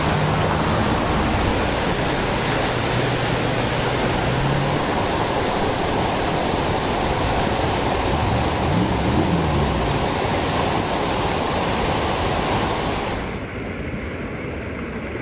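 Floodwater rushing in a steady, loud roar of water noise. About 13 seconds in it cuts abruptly to a quieter, duller rush.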